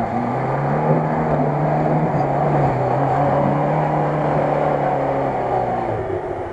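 Lada Niva's engine running hard under load as the 4x4 pushes through deep mud. Its note rises at the start, holds steady, then eases off near the end.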